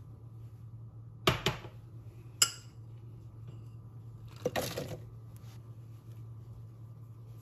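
Pitted dates dropped into a plastic food processor bowl onto oats and pecans: a short rattle about halfway through, after two sharp knocks near the start. A steady low hum runs underneath.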